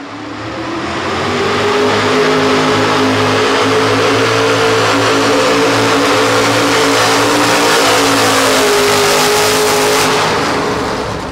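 Economy hot rod pulling tractor's engine at full throttle under load, pulling a weight-transfer sled. It builds over the first couple of seconds, holds steady and loud, and eases off near the end.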